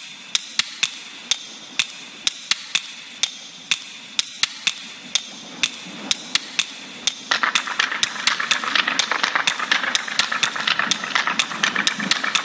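Irregular sharp clicks, then about seven seconds in a louder, steady whirring rush with rapid clicking: a zipline trolley's pulleys running along the steel cable as the rider launches.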